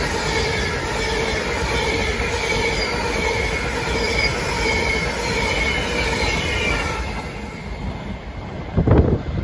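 Avanti West Coast express train running through at speed on the through line: a steady rumble of wheels on rail with a faint high whine, fading as the last coaches pass. A loud thump near the end.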